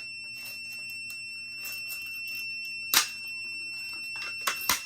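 Plastic and metal clicks of a FireLite BG-12L fire alarm pull station being reset by hand: one sharp click about three seconds in and two smaller ones near the end. A steady high electronic tone from the fire alarm panel's buzzer sounds underneath.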